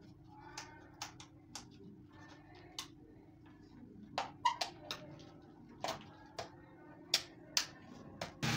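Light, irregular clicks and taps of a screwdriver working on a plastic plug and wall socket, about a dozen sharp ticks at uneven intervals. A louder steady noise cuts in suddenly at the very end.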